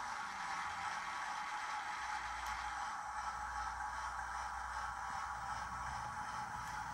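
Hornby Class 08 model shunter's TTS sound decoder playing a diesel shunter engine running steadily, heard through the locomotive's small speaker with a faint steady pulse, over the hiss of the model running on the track.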